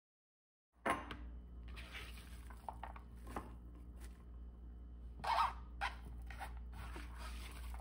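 Sliced onion being handled on a cutting board and scooped into a glass bowl: a string of light knocks, clicks and rustles, loudest a little past the middle, over a low steady hum.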